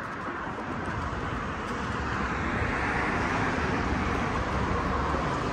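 Street traffic noise from cars driving past on the road, tyre and engine sound swelling about two seconds in and staying up.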